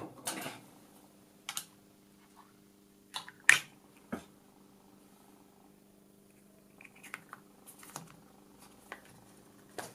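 Scattered clicks and knocks of hands handling a vintage gyro unit's circular connector: its cap is pulled off and then fitted back on. The loudest knock comes about three and a half seconds in, and a denser run of clicks comes near the end. A steady low hum runs under them.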